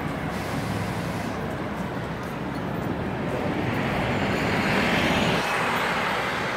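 City street traffic noise with a single-decker bus driving past close by: its sound grows louder to a peak about five seconds in, then drops away quickly as it passes.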